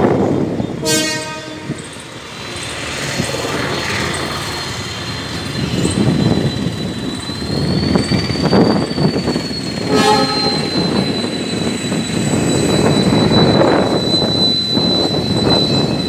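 Diesel locomotive on a shunting move sounds its horn twice: a blast of about a second near the start and a short toot about ten seconds in. In between, the engine and train rumble grows louder as it approaches, with a thin high whine running alongside.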